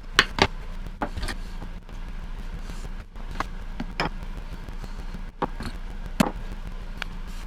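Irregular sharp wooden knocks and clacks, about nine, as the finished wooden cam clamps are handled and set down, over a steady low hum.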